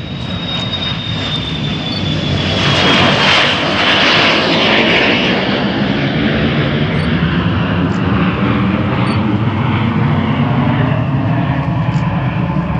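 Bombardier Challenger 350 business jet taking off, its two Honeywell HTF7350 turbofans at takeoff thrust. A high whine falls in pitch as the jet rolls past, the noise is loudest about three to five seconds in, and then it runs on as a steady low rumble while the jet climbs away.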